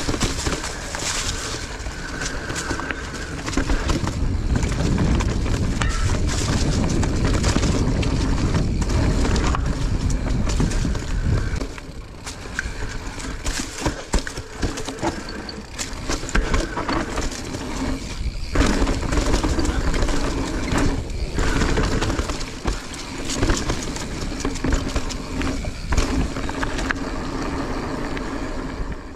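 Mountain bike riding over a dirt trail: tyres rolling and the bike rattling and clacking over bumps, with wind buffeting the microphone. The sound cuts off suddenly at the very end.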